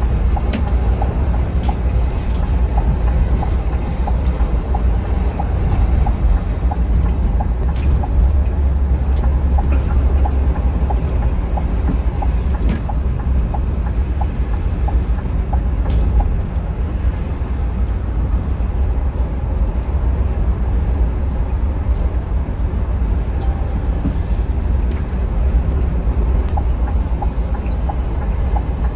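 Scania K360iB coach running at speed: a steady low engine and road rumble with scattered small clicks and rattles.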